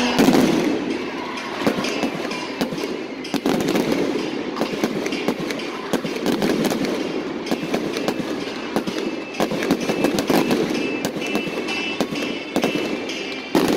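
Fireworks display: aerial shells and fountains going off in a rapid, irregular string of bangs and crackles over a continuous rumble.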